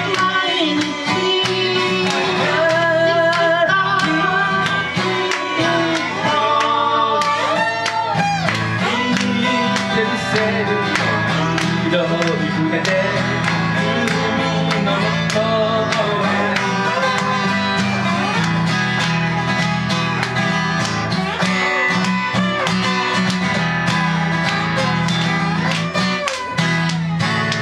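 Live acoustic folk music: an acoustic guitar played flat on the lap with a slide carries a lead line of gliding, bending notes over a strummed acoustic guitar.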